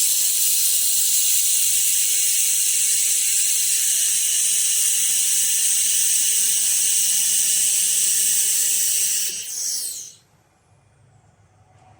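Fiber laser welding machine welding 5 mm aluminum: a steady, loud high hiss of the weld and its gas jet that cuts off about ten seconds in.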